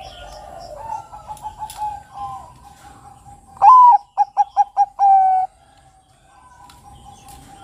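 Zebra dove (Bangkok perkutut) cooing: soft, wavering coos in the first couple of seconds. Then, about halfway in, a loud song phrase of one rising opening note, four quick short notes and a long held final note.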